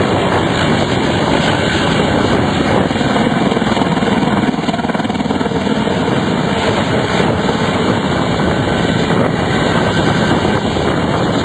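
Helicopter rotor and engine running, a loud, steady noise throughout.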